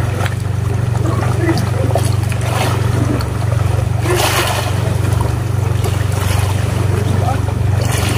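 Engine of a motorized outrigger boat (bangka) running at a steady pace, a low even drone, with water noise from the hull. A brief louder rush of noise comes about four seconds in.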